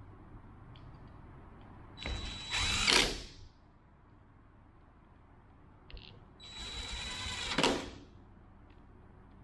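Cordless drill-driver running twice, about a second each time, spinning in T30 Torx bolts to fasten a differential actuator; each run gets loudest just before it stops as the bolt seats.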